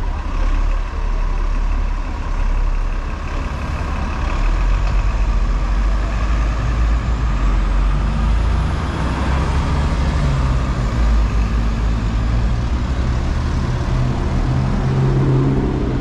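City road traffic: double-decker buses, cars and a lorry passing with a steady, heavy engine rumble. Near the end a heavy engine's note climbs in pitch.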